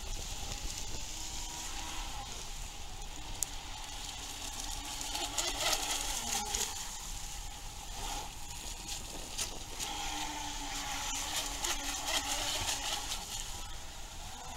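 Radio-controlled model jet ski running on the water: a thin motor whine that rises and falls in pitch as the throttle changes, over a steady hiss with crackles.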